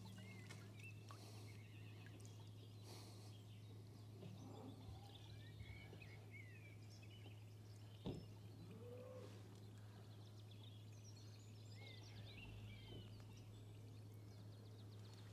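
Near silence with faint birdsong: scattered short chirps and whistles throughout, over a steady low hum. One brief soft click about eight seconds in.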